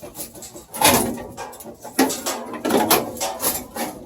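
Sheet metal being worked by hand: a few sharp metallic knocks and clanks with scraping, the loudest about one, two and three seconds in.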